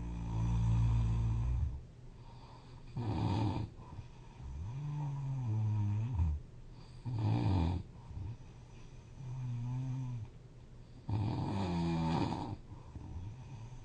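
A sleeping person snoring loudly, in a slow irregular rhythm. Short rasping snores alternate with a humming tone on the out-breath that rises and falls, about three breaths in all.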